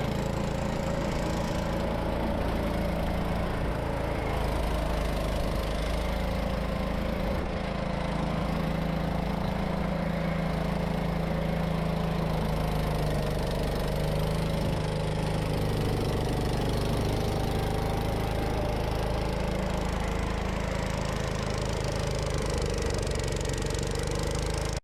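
Gravely C10 walk-behind tractor's Kohler engine running steadily while driving its snow blower through snow, its speed wavering slightly under the load.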